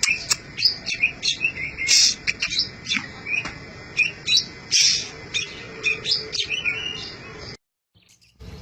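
Oriental magpie-robin (kacer) singing vigorously: a rapid run of sharp chirps and whistled notes. It cuts off suddenly near the end.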